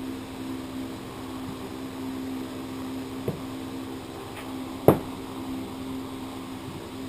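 A steady low mechanical hum, with a light click about three seconds in and a sharper, louder click near five seconds as the brake caliper's piston and housing are handled and fitted together.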